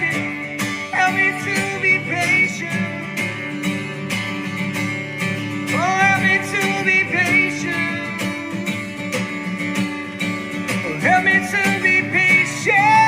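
A man singing with long held notes, sliding up into some of them, over a strummed acoustic guitar.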